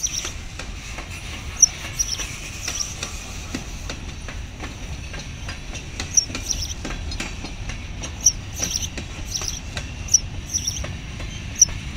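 Freight train cars rolling steadily past with a low rumble. Many short, high squeaks and faint clicks come at irregular moments throughout.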